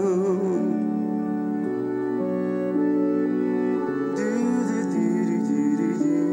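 A song playing, between sung lines. A sung note with vibrato trails off at the start, then held instrumental notes carry on, with more instruments joining about four seconds in.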